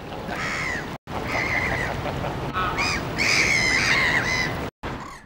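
Greylag geese honking, a run of short calls over steady outdoor background noise. The sound cuts out briefly twice.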